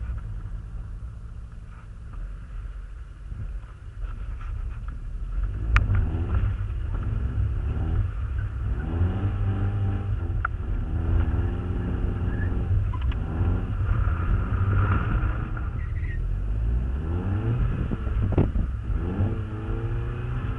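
Mazda MX-5 Miata's four-cylinder engine with a heavy low rumble, quieter for the first few seconds, then revving up and down repeatedly from about six seconds in.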